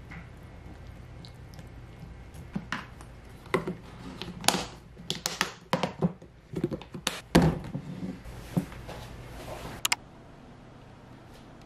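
Snap-lock plastic lids being pressed onto glass food containers and their clip flaps snapped shut: a run of sharp clicks and knocks over several seconds that stops about ten seconds in.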